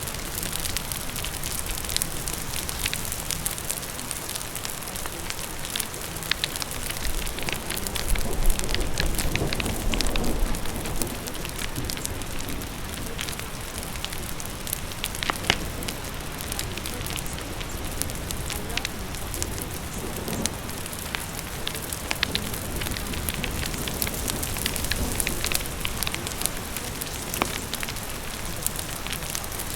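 Wood fire crackling with many small sharp pops over steady rain. A low rumble swells briefly about eight to eleven seconds in.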